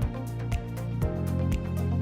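Background music: a beat-driven instrumental with a hit about every half second over deep sustained bass notes.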